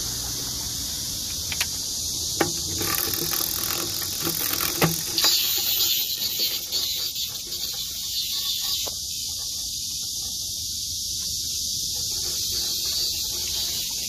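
Cicadas buzzing in a continuous, high-pitched chorus, with a few sharp knocks in the first five seconds or so, as the net pole is handled.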